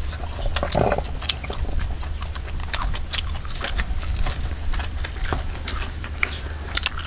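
A person chewing food close to the microphone, with many short wet clicks and smacks of the mouth over a steady low hum.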